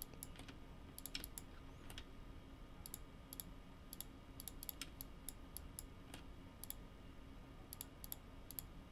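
Faint, irregular clicks of a computer mouse and keyboard, some in quick pairs, as faces of a 3D model are shift-click selected.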